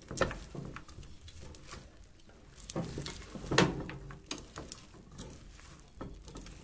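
A metal spoon scraping and clinking against the side of a metal pot as sticky sweetened toasted corn is stirred, with a ladle dipping into a pot of soup. There is a run of small clicks and scrapes, with a louder clink near the start and another about three and a half seconds in.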